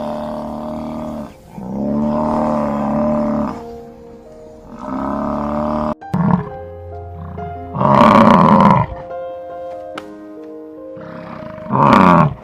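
A large animal roaring twice, loud and rough, about eight and twelve seconds in, over background music. Three drawn-out pitched sounds come before them in the first half.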